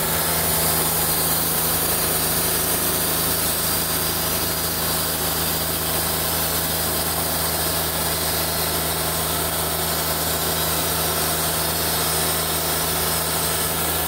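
Wood-Mizer LT40 portable band sawmill running steadily, its diesel engine driving the band blade along the log in a cut.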